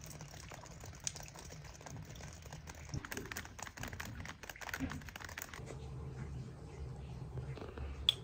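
Faint crinkling and scattered light clicks of food being handled during preparation, with one sharp tap near the end.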